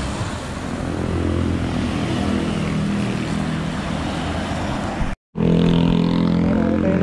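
Road traffic: cars and motorcycles going by on a wide road, with a steady engine hum and road noise. The sound drops out for a moment about five seconds in, then a steady engine hum carries on.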